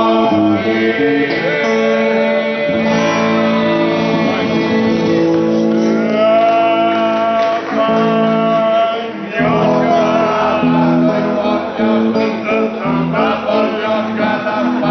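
Men singing a song together to a strummed guitar.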